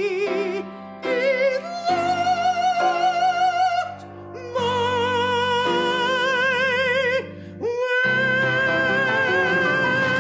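Operatic singing in a high, soprano-like voice with a wide vibrato, sung in several short phrases and ending on a long held high note from about eight seconds in.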